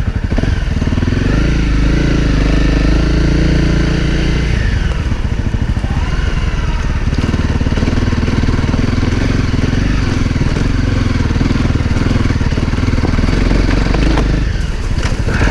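A 2017 Honda CRF250L's single-cylinder four-stroke engine running as the dirt bike crawls over rocky trail in low gear. The engine pitch rises and falls over the first few seconds, then settles low and steady.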